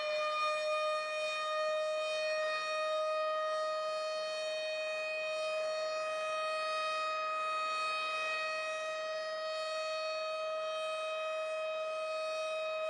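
Tornado warning siren sounding a steady tone: it finishes winding up in pitch about a second in, then holds one note.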